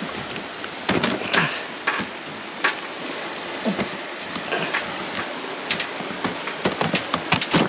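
Clatter and knocks of heavy fishing gear and a cooler box being hauled over rocky ground, with footsteps and a few short grunts of effort, over a steady hiss.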